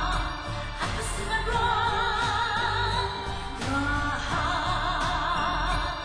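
Background music: a singer holding long notes with a wide vibrato over a low, steady accompaniment, phrases breaking off and starting again twice.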